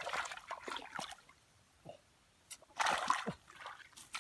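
Splashing and sloshing of shallow muddy water as hands grope for fish, in irregular bursts with a quiet spell in the middle.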